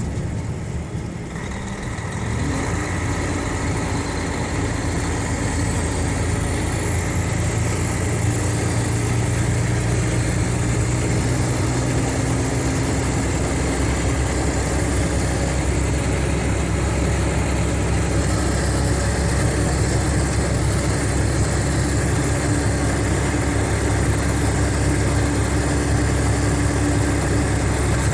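Mercedes-Benz O500RSD coach's diesel engine running steadily. About two seconds in it dips briefly, then its pitch rises.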